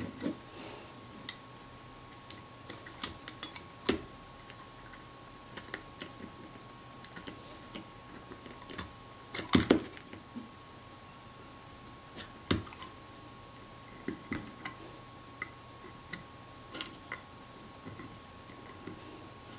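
A slim steel tool clicking and tapping against the small metal parts of a Braun Paxette camera body as a pin in its mechanism is worked loose, in scattered light ticks with a couple of louder knocks near the middle.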